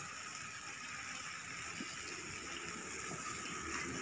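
Meat skewers sizzling on a charcoal grill as they are basted with sauce: a steady, even hiss.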